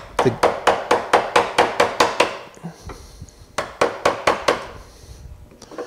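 Light, rapid mallet taps on a 3/4-inch flat chisel cutting a chamfer into a hardwood spoon blank, about five taps a second. Two runs of taps with a pause of a second or so between them.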